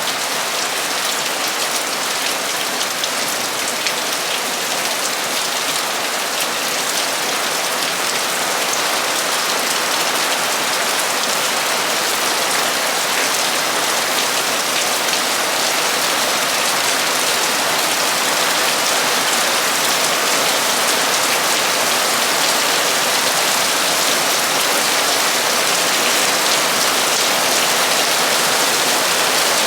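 Torrential rain falling on a metal roof: a dense, steady hiss of drops, getting a little louder toward the end.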